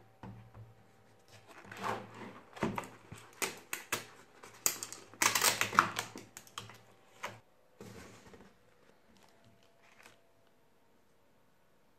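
Keys of a Logitech K400 Plus wireless keyboard clicking in an uneven run of taps, mixed with louder rustling handling noise, dying away about eight seconds in to a faint steady hum.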